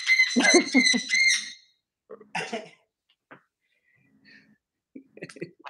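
A parrot's loud, shrill whistling call, held at one pitch for about a second and a half, followed by a few short, faint squeaks and chirps.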